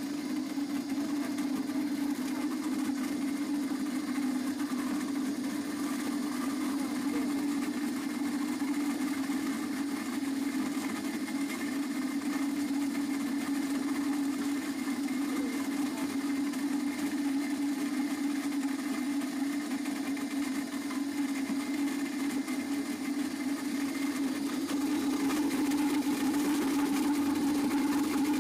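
Electric fruit mill running steadily with an even motor hum as it grinds apples into pulp, getting a little louder near the end.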